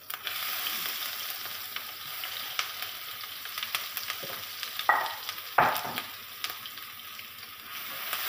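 Minced garlic and shallots sizzling in hot oil in a nonstick wok, the sizzle starting suddenly as they hit the oil, with scattered small clicks. Two sharp knocks come about five seconds in. The sizzle swells again near the end as a wooden spatula starts stirring.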